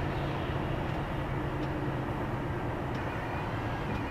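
Lorry engine running with a steady, even drone.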